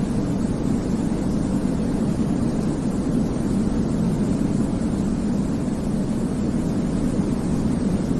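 Steady sleep-aid white noise for a baby: an even, unbroken hiss with most of its weight low down, giving a deep rushing sound that never changes.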